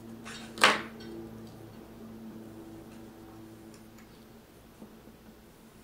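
Small plastic graphics card fan and tools being handled by hand: one sharp click about half a second in, then a few faint ticks, over a faint steady hum.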